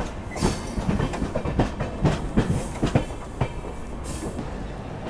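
Passenger train coach wheels clattering over rail joints and points, an irregular run of knocks over a steady rumble, heard from an open doorway. A short hiss comes about four seconds in.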